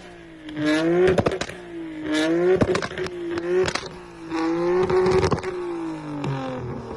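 Modified car engine revved in several short blips, its exhaust popping and cracking sharply as the revs fall. This is the kind of pop-and-bang tune that is shooting flames and smoke from the exhaust.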